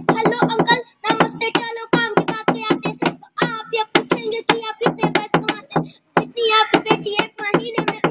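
A young boy rapping fast in Hindi, rattling off short syllables in quick phrases with brief breaks between them, mixed with sharp clicks.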